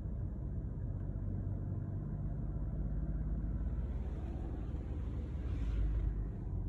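Peugeot 2008 engine held at about 2000 rpm, heard from inside the cabin as a steady low rumble, with a swell of higher, noisier sound between about four and six seconds in. It is run this way to bring out a rattle from behind the passenger-side glovebox and dashboard, a fault that keeps returning in the new car.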